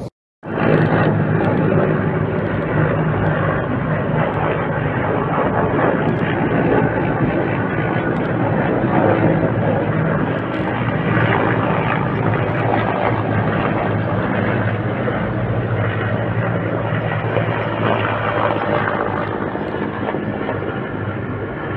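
A large formation of military helicopters flying overhead: a loud, steady rotor and engine drone with a low hum, cutting in abruptly just under half a second in.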